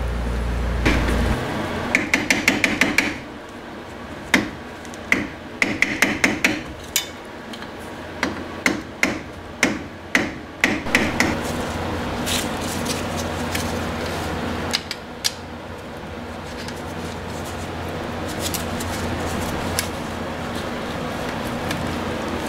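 Repeated sharp hammer blows on metal brake parts, in quick clusters, some with a short metallic ring. After about 12 s they give way to a few light ticks and scraping as a long screwdriver pries at the wheel hub's dust cap.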